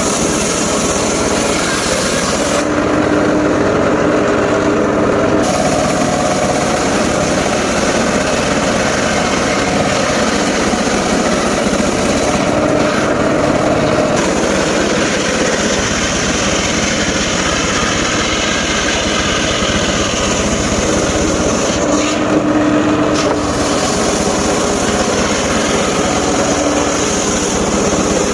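Engine-driven mobile circular saw running and cutting timber, a loud steady mechanical din. A few times the harsh cutting noise drops away briefly, leaving a steadier hum.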